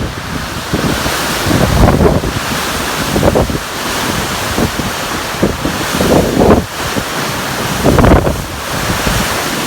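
Strong wind gusting against the microphone: heavy, irregular buffets every second or two over a steady rushing noise.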